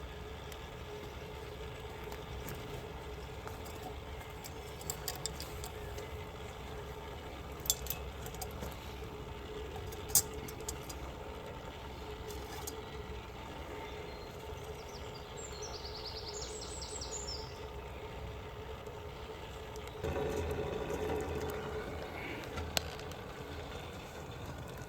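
Wood fire burning in the base of a Kelly kettle, the draught up its chimney giving a steady rushing hum, with a few sharp crackles from the burning twigs. It grows louder about twenty seconds in.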